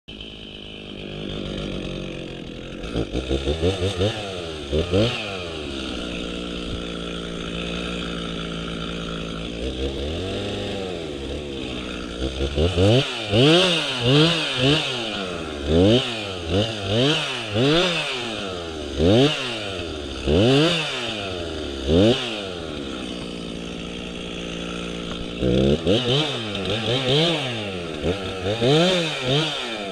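Two-stroke chainsaw idling and being revved in quick bursts over and over, its pitch jumping up and dropping back to idle each time, with two stretches of steady idling between the runs of revs.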